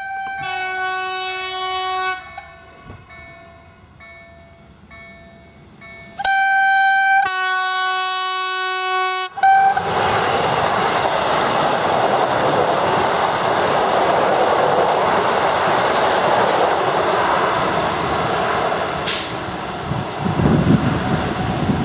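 Newag Impuls electric multiple unit sounding its horn twice as it approaches, a blast of about two seconds and then a louder, longer one. It then runs past close by with a steady, loud wheel-and-rail rush.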